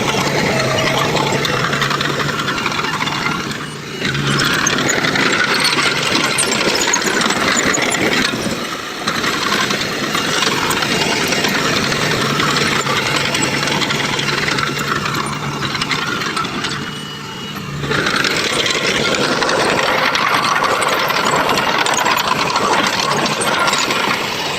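Heavy diesel construction machinery running under load, with a steady low engine drone and metal rattling and clanking. The sound dips briefly three times, about 4, 9 and 17 seconds in.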